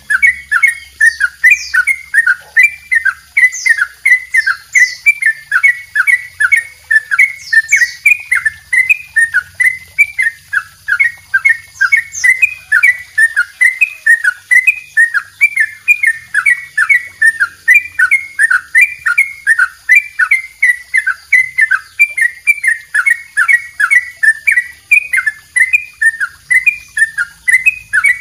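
Yellow-vented bulbul (trucukan) singing a long, unbroken run of rapid repeated notes, about three a second. Each note is a short downward slide, in the rolling 'double ropel' song kept as a tutor (master) recording for other songbirds.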